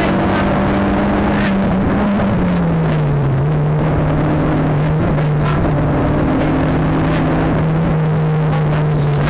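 Nissan Sunny GTi-R's turbocharged four-cylinder engine running steadily, heard from inside the car's cabin. Its note dips about two to three seconds in, then holds steady again, with a few scattered clicks and rattles over the engine and road noise.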